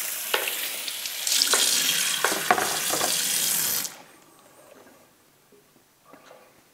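Kitchen tap running into a sink during cleaning up, with a few small clicks and knocks, turned off abruptly about four seconds in.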